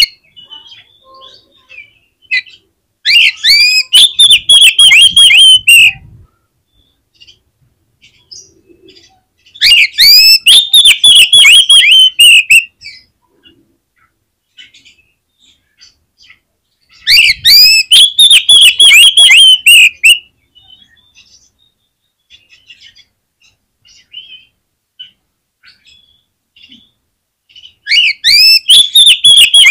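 Oriental magpie-robin (kacer) in full song: four loud bouts of rapid, repeated sliding notes, each about three seconds long, with faint chirps between them.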